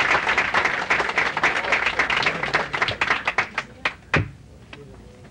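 Audience applauding; the clapping thins out and fades about four seconds in, with one last sharp knock as it dies away.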